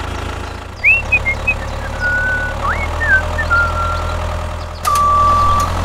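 Tractor engine idling sound effect, a steady low rumble, for a toy tractor driving into a garage. Short rising chirps sound about a second in and again near the middle. Near the end a steady reversing-alarm beep starts and holds.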